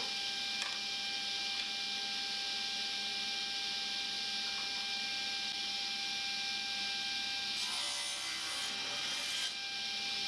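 A power saw running with a steady whine and hiss. Its sound roughens for a second or two near the end, as if timber is going through the blade, and the pitch sags slightly just before it stops.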